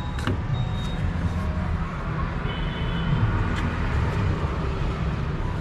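Busy street ambience: a steady low rumble of passing traffic, with a couple of sharp clicks.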